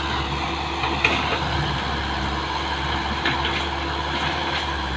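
Hino Mega dump truck's turbocharged, intercooled J07E diesel engine running steadily.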